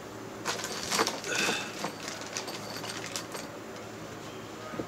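A run of irregular clicks and knocks with a short squeak about a second and a half in, thinning out after the first three seconds, over a faint steady hum.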